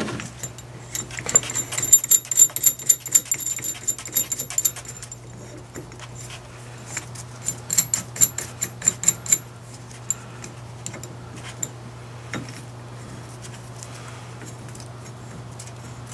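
Ratchet wrench clicking in two quick runs, about a second in and again near the middle, as the bolts of a clamp fitted under a Dana 44 carrier bearing are run down, with a few metal knocks after.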